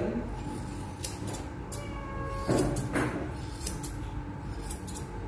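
Grooming shears snipping a puppy's fur, a string of irregularly spaced crisp snips as the tail and rear are trimmed.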